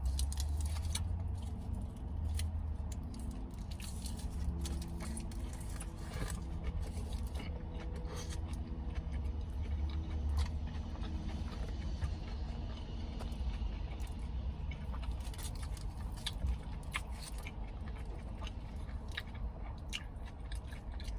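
Close-miked chewing and mouth sounds of someone eating, with many short clicks, over a steady low rumble inside a car.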